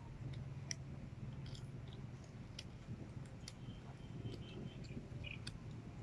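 Small plastic Rubik's cube being turned by hand: faint, irregular clicks as its layers turn, over a low steady hum.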